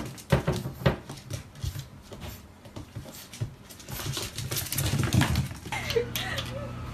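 A puppy and a long-haired cat play-fighting on a tile floor: quick taps and scuffles of paws and claws, busiest in a flurry about four to five seconds in. Near the end a steady hum comes in with a short wavering dog whine.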